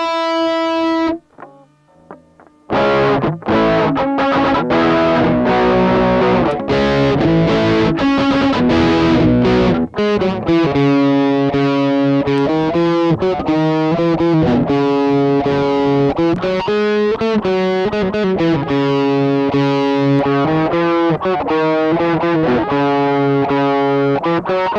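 Electric guitar played through a Palmer Pocket Amp MK II on a crunch setting. A held note fades out, and after a short pause come distorted strummed chords; from about ten seconds in, a crunchy riff of picked notes.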